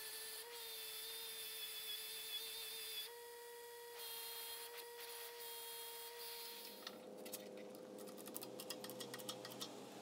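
A 6-inch bench grinder runs with a steady whine while a steel rod is scrubbed against its wire wheel, giving a hissing scratch. About two-thirds of the way through this stops and gives way to a rapid run of light metallic clicks as steel parts are handled.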